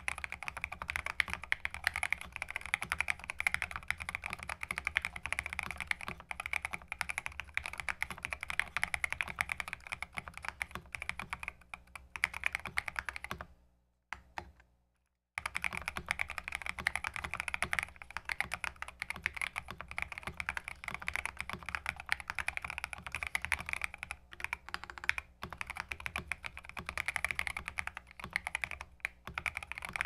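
Fast, continuous typing on a custom 60% mechanical keyboard with a 3D-printed PLA case, NK Silk linear switches and MT3 keycaps, the case dampened with foam and poly-fil: a dense stream of keystrokes. The typing stops for about a second near the middle, then resumes.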